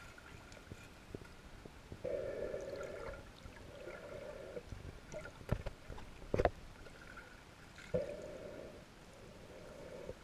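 Muffled underwater sound: two pairs of short rushing bursts, and two sharp knocks about a second apart near the middle.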